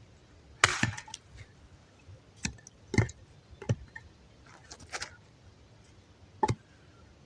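Wet, ice-crusted firewood being chopped: about six sharp, irregularly spaced blows into the wood, the first the loudest.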